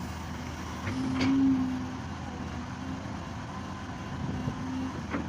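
Excavator's diesel engine running steadily, swelling louder for about a second near the start as it works under load, with two sharp knocks, one early and one near the end.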